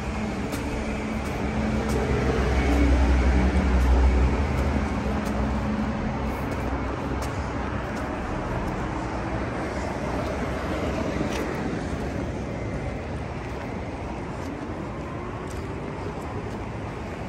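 Road traffic: a motor vehicle's engine passing close by, loudest a few seconds in, then steady traffic noise with another vehicle's engine rising in pitch as it approaches.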